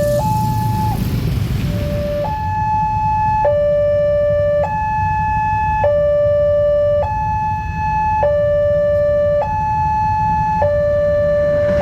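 Railway level-crossing warning siren sounding a two-tone hi-lo alarm that alternates between a higher and a lower tone about every second and a quarter, warning that a train is approaching. The alarm breaks off briefly about a second in, then keeps up its even alternation.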